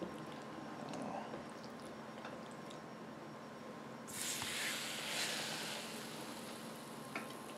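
Marinated New York strip steak laid with tongs into the preheated pan, sizzling briefly about four seconds in and then dying down.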